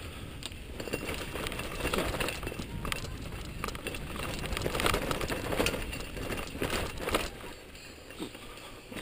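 Mountain bike riding down a rocky dirt singletrack: tyres crunching over dirt and stones, with the bike rattling and clicking over the bumps. It gets quieter near the end.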